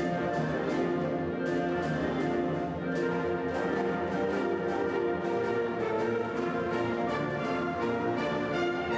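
Orchestra playing, with a typewriter used as a percussion instrument, its keys clicking sharply several times a second in rhythm with the music.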